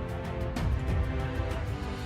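Background music with a steady beat and sustained pitched tones.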